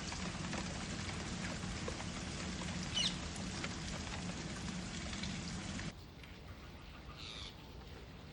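Parrot calls: one short squawk about three seconds in and another about seven seconds in, over a steady hiss that drops away sharply about six seconds in.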